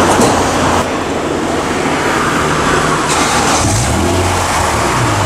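Honda NSX's V6 engine running at idle, with a brief rise in engine note about four seconds in.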